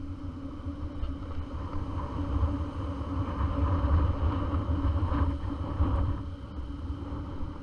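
Dirt bike engine running with a steady drone, growing louder over the first few seconds and easing off again near the end.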